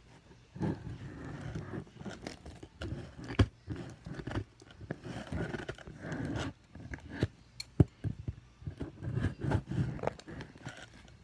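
Close handling noise from opening a toy's packaging: irregular scraping and rustling with sharp clicks, the loudest click a little under two-thirds of the way through.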